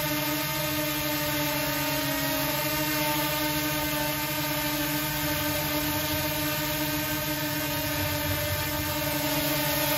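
Small folding quadcopter drone hovering low, its four propellers and motors giving a steady whine of several even tones.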